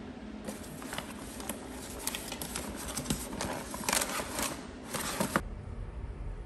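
A handful of paper flyers rustling and crinkling as they are pulled out of a crammed metal mailbox, a busy run of crackles that stops abruptly about five seconds in.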